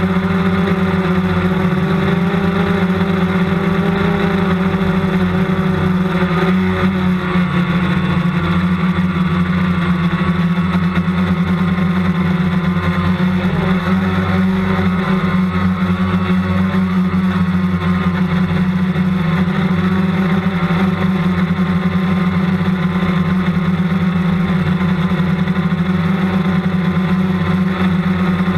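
Multicopter's propellers and electric motors droning steadily, picked up by its onboard camera; the pitch wavers slightly as it holds its hover.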